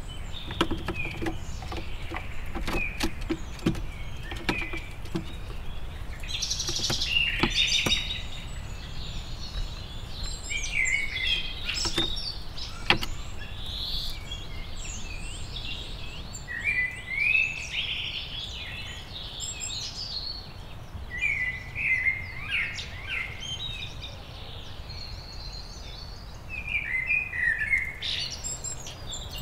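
Wild forest songbirds singing and chirping, many short quick notes from several birds throughout, over a steady low background rumble. A handful of sharp taps or clicks fall in the first half.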